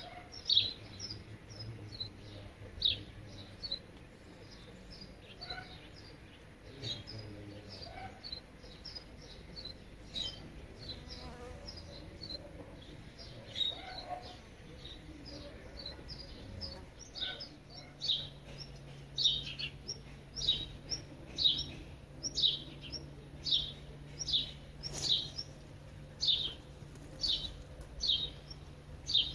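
Birds chirping outdoors: short, high, falling chirps, scattered at first and then a steady run of about one to two a second through the second half. Under the second half runs a low, steady buzz.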